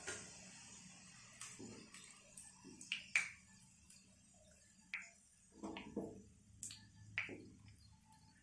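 Faint, scattered light clicks and clinks, about eight of them at irregular intervals: a spatula or slotted spoon tapping the kadai and plate while the fried onions are lifted out of the oil.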